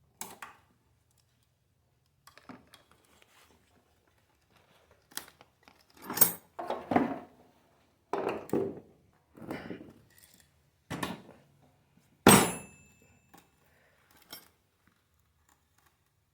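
Metal parts and tools being handled during a wheelchair motor repair: scattered clinks, rattles and knocks, with the loudest a sharp metallic clank about twelve seconds in that rings briefly.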